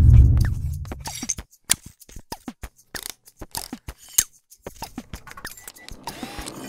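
Sound effects for an animated logo and title sequence: a low boom right at the start, then a run of quick, irregular clicks and ticks as the title letters appear.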